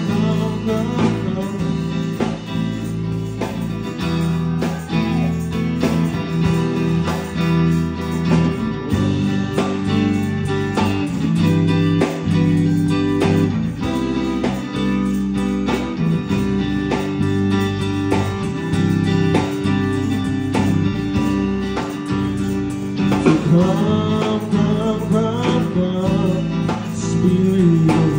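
Live amplified gospel band music: electric bass and guitar with the band, played through PA speakers. A man's voice sings over it in places, most plainly near the end.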